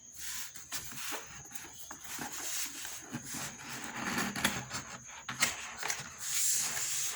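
A cardboard keyboard box being opened and handled, with irregular rubbing and scraping of cardboard and a few light knocks, and a louder rustling swish about six seconds in.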